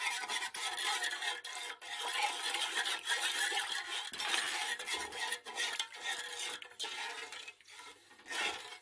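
A spoon stirring sugar into warm water in a large metal pot, scraping continuously against the pot's bottom and sides while the sugar dissolves. The stirring pauses briefly near the end.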